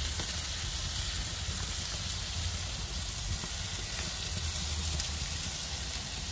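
Jerk chicken pieces sizzling on a barbecue grill's grates: a steady hiss with a low rumble underneath.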